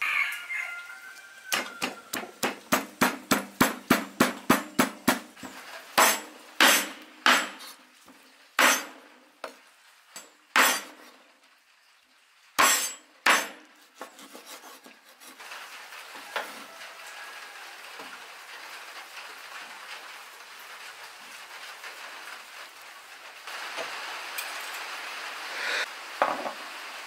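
Rapid pounding of green chilies in a clay mortar, about four knocks a second for a few seconds. Then single heavy chops, about a second apart, of a cleaver cutting chicken pieces on a wooden cutting board. The last half is a faint steady hiss.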